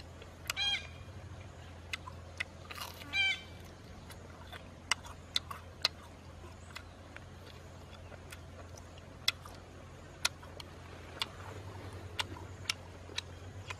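Scattered sharp lip-smacking and chewing clicks of a person eating roasted meat off a bamboo skewer, over a steady low hum. Two short calls, falling in pitch, come about half a second in and about three seconds in, much like a chicken clucking.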